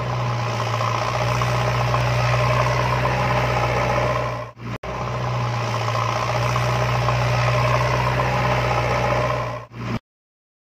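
An engine sound effect laid over a toy JCB loader: a heavy engine running steadily with a low hum. It plays in two stretches with a brief cut about four and a half seconds in, then stops abruptly near the end.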